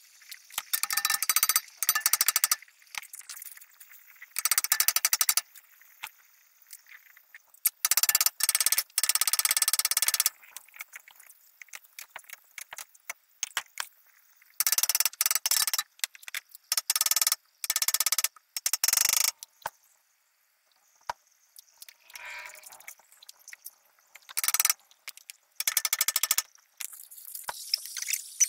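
Pneumatic air hammer in about a dozen short bursts of rapid metallic rattling against a hydraulic puller, driving at an axle rusted solid into its wheel hub.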